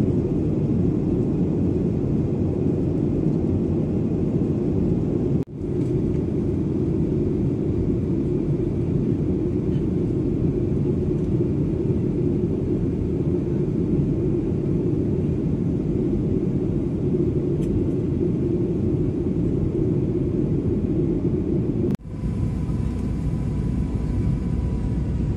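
Steady cabin roar of a Boeing 737-900ER in flight, its CFM56-7B engines and airflow heard from a window seat over the wing. The sound cuts out sharply twice, about five seconds in and near the end, and after the second break a faint steady high tone joins the roar.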